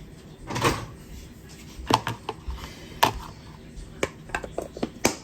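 Cookware and utensils being handled: a series of sharp knocks and clinks, about eight over five seconds.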